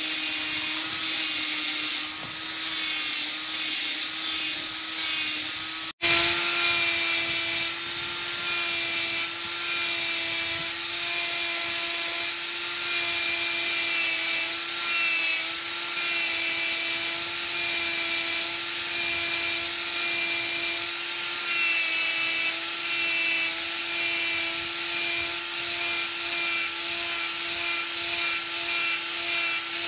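Handheld power tool spinning a sanding disc on a foam-backed pad, grinding the steel of an axe head held in a vise: a steady motor whine under a hissing, rubbing grind. The sound drops out for an instant about six seconds in and comes back with the motor pitched slightly higher.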